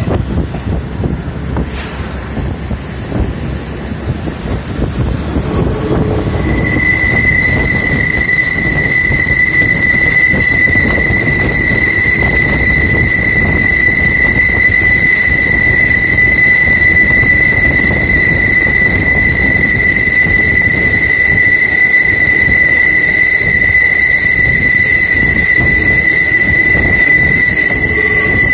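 Train running, heard from on board with a steady low rumble and a single knock about two seconds in. About six seconds in, a steady high-pitched wheel squeal starts and holds, as the wheels grind round a curve in the track.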